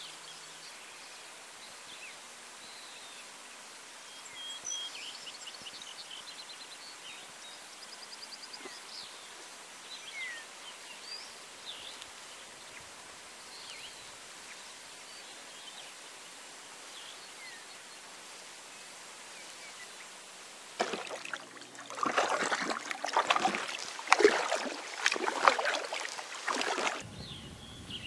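Faint scattered bird chirps and a short trill over quiet still-water ambience. About three-quarters of the way through come several seconds of loud crackling, rustling scrapes, which stop suddenly: the inflatable kayak is pushing into reeds, their stems brushing along the hull.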